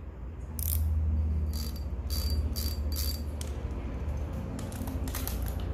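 Used Daiwa spinning fishing reel being cranked by hand, its gears and rotor giving light repeated ticking over a steady low hum.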